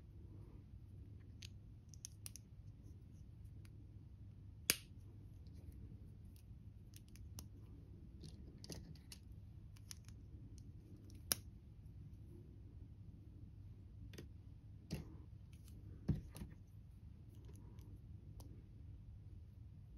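Plastic LEGO bricks and plates being handled and pressed together: scattered small clicks and ticks at irregular intervals, with four louder snaps standing out.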